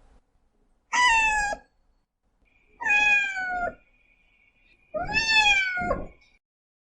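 A cat meowing three times, each meow lasting well under a second and sliding a little down in pitch toward its end.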